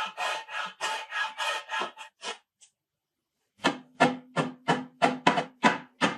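Hand-sanding a laminated Douglas fir and mahogany handle with a sanding sponge: rhythmic back-and-forth scraping strokes, about three to four a second. The strokes stop about two seconds in and start again a second later, louder and with a steady low tone under them.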